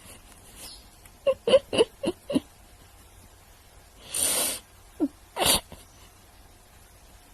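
Parrot vocalising: a quick run of about five short calls, then a breathy, sneeze-like hiss about half a second long, followed by another short call and a second breathy burst.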